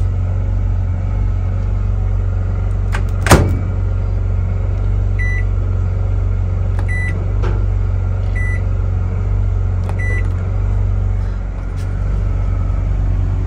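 A steady low hum runs throughout. About three seconds in there is a sharp metal clunk as a baking pan and wire rack are set into a convection microwave oven. Then come four short keypad beeps, about a second and a half apart, as its buttons are pressed.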